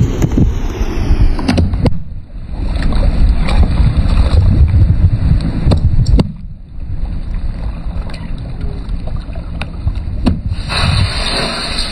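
A car tyre rolling slowly over cardboard juice cartons on asphalt, crushing them. Sharp cracks and pops about 1.5 s, 6 s and 10 s in as the cartons burst, over a steady low rumble of the car and wind.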